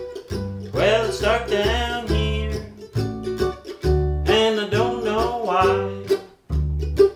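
Upright bass and mandolin playing a song together, the bass plucking steady low notes under the mandolin's melody.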